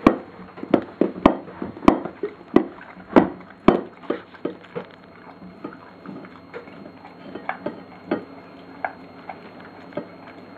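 Flat-coated retriever eating from a food bowl on the floor, making a series of sharp clicks and knocks against the bowl. They come about every half second for the first few seconds, then grow softer and more irregular.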